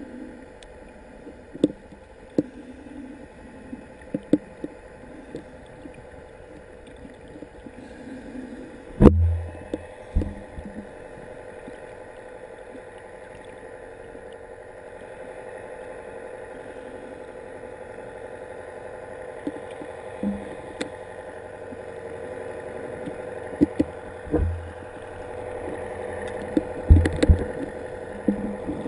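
Underwater ambience with the steady hum of a boat's engine carried through the water. Scattered sharp clicks and knocks, and a heavy low thump about nine seconds in, then two more near the end.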